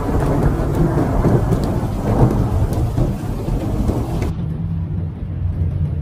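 Snowstorm recorded on a phone: steady low rumbling storm noise from wind and heavy snowfall. About four seconds in, it cuts to a quieter low rumble with the highs gone.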